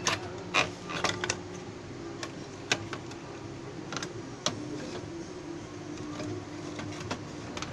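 Irregular clicks and light plastic knocks as the cooling fan and its wiring are worked loose from an HP LaserJet P3015 laser printer by hand, over a steady low hum.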